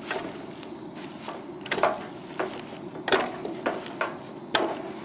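A wooden spoon stirring leafy kale in a stainless steel cooking pot, with several sharp knocks of the spoon against the pot and rustling of the leaves, over a steady low hiss.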